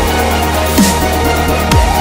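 Electronic dance music with a steady heavy bass and sharp falling pitch sweeps about a second apart, over regular hi-hat-like percussion.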